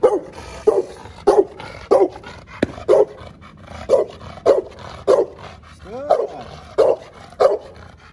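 Pitbull barking over and over, about one to two barks a second with short pauses, one bark about six seconds in sliding in pitch. It is barking in drive at a decoy holding a bite pillow during protection training.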